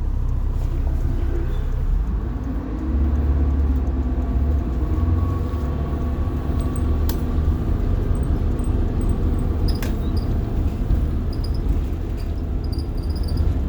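Rear-mounted diesel engine of a 1990 Blue Bird All American school bus heard from the driver's seat, rising in pitch a couple of seconds in as the bus accelerates through a turn, then running steadily. A sharp click about ten seconds in and short high chirps repeating near the end.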